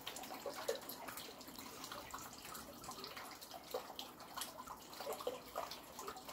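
Faint water trickling and dripping inside a drain below a grate, with scattered small drips.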